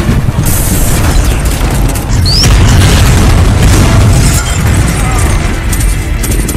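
Loud action-movie sound mix: heavy booming low rumble under a film score, with a brief rising high whistle about two seconds in.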